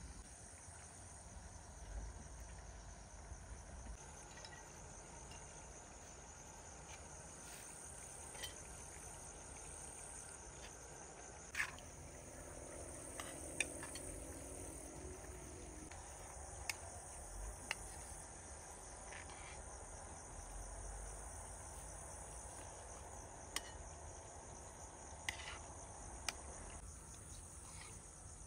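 A steady high-pitched insect chorus, with scattered sharp clicks of spoons against metal plates.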